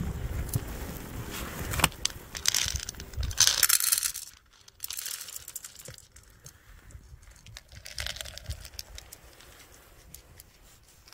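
Loud crinkling and rustling of plastic packaging for the first four seconds or so, then quieter light clicks and rattles of dry cat food poured into a plastic bowl, with a cat starting to crunch the kibble.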